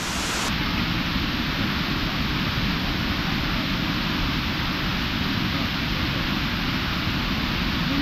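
Waterfall pouring steadily into its pool: a constant, even rush of falling water.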